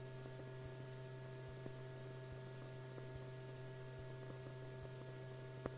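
Faint steady hum with light hiss from an old film soundtrack, with scattered faint clicks and one slightly stronger click near the end.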